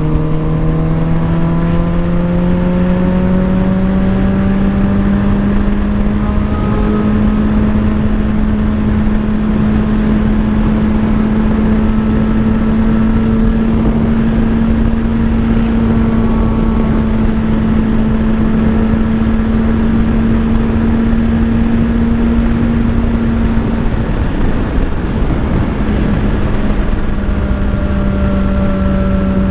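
Motorcycle engine running at a steady pace under constant wind and road noise. Its note climbs gradually over the first few seconds, then holds even, with a brief dip a little after twenty seconds.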